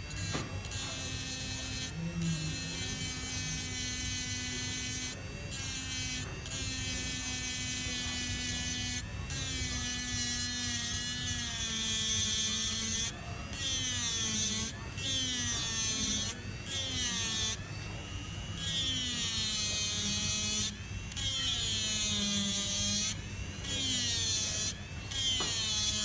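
Small handheld electric grinder's motor whining while its bit grinds the metal back of an iPhone 7 home button. The pitch sags and recovers repeatedly as the bit is pressed on and eased off, with brief breaks every few seconds.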